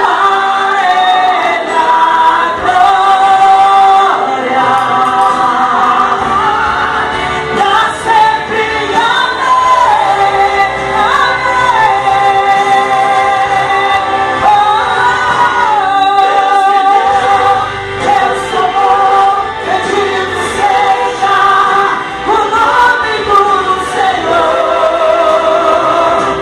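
A woman singing a gospel worship song with vibrato over sustained instrumental backing.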